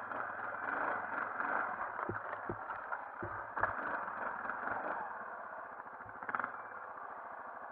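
Yamaha Grizzly 450 ATV's single-cylinder engine running at low speed, with several sharp knocks and clatters from the machine pushing through ferns and brush.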